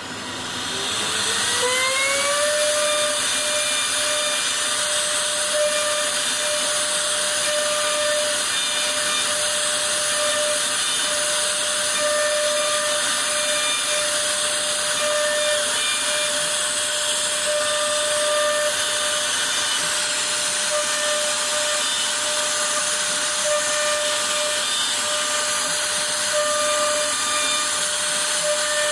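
CNC router spindle spinning up with a rising whine over the first couple of seconds, then running at a steady high whine as its bit cuts into a wooden board.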